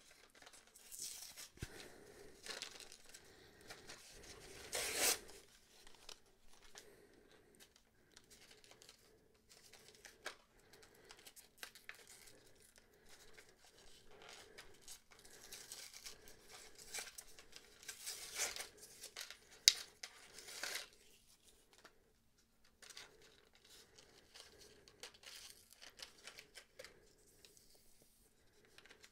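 Toy blister pack being torn open by hand: the cardboard backing card ripping and the plastic blister crinkling, in scattered bursts, the loudest about five seconds in and again around eighteen to twenty seconds in.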